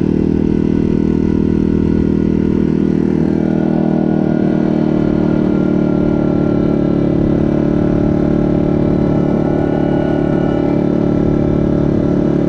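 Yamaha Grizzly ATV's single-cylinder four-stroke engine running steadily while the quad cruises down a road, a constant engine drone at an even speed.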